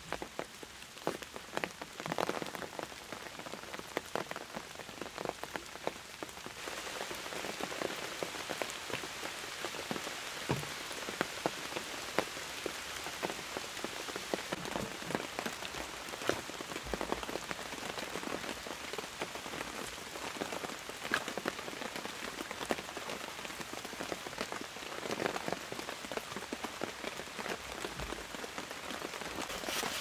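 Steady rain with many separate drops striking a surface, growing heavier about six or seven seconds in.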